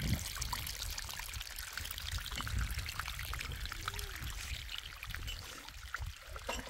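Water running and trickling steadily, with many small splashes over a low rumble.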